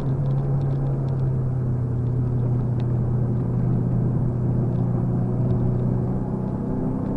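Car engine running at steady revs, heard from inside the cabin, over a haze of road noise, with a few faint ticks on top.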